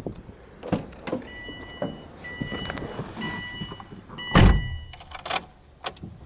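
Interior warning chime of a Subaru Impreza WRX STi sounding in repeated even pulses, under a second each. A heavy car-door thunk comes about four and a half seconds in, and the chime stops soon after. Then come a few clicks as the key is turned to the on position and the dash warning lights come on.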